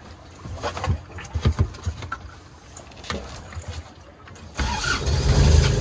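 Sailboat's Universal inboard engine started from the cockpit panel: a few scattered clicks and knocks, then about four and a half seconds in the engine catches and runs steadily, low-pitched.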